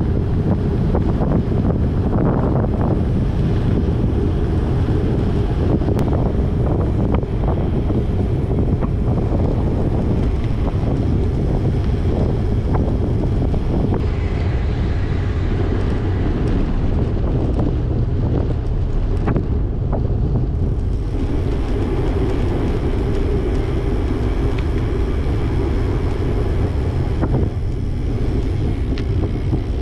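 Steady, loud wind rushing and buffeting over the microphone of a handlebar-mounted camera on a moving road bike, a dense low rumble without breaks.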